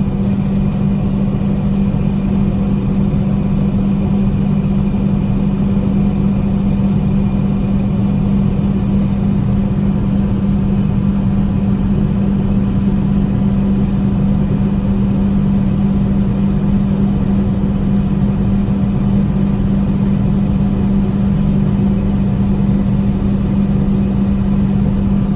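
John Deere 4400 combine running steadily, a constant engine-and-machinery drone with a strong low hum that holds the same pitch throughout.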